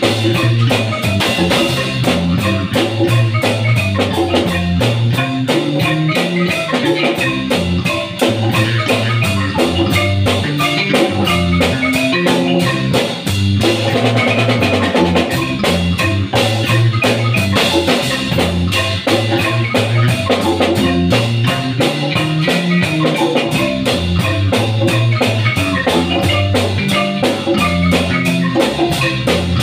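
Live marimba band playing: a marimba struck with mallets, over congas and a drum kit keeping a steady beat.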